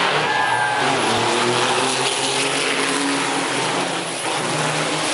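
Formula Truck race trucks passing on the circuit, their big diesel engines running loudly and steadily.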